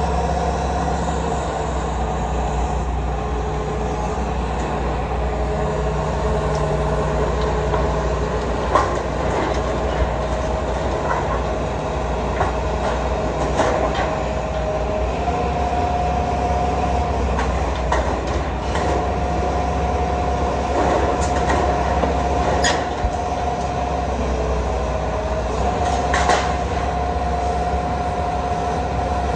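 Hitachi ZAXIS 225USR excavator running, its diesel engine humming steadily under a hydraulic whine that steps up and down in pitch several times as the boom and steel-cutter attachment move. Scattered sharp clanks and knocks, the loudest about 23 and 26 seconds in, as the attachment works among the steel and timber debris.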